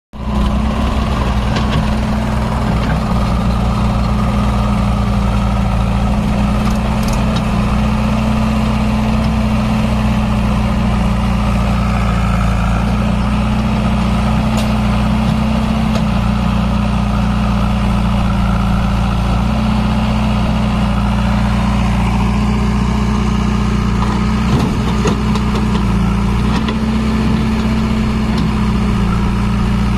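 Mahindra 575 DI tractor's four-cylinder diesel engine running steadily at a low, even speed.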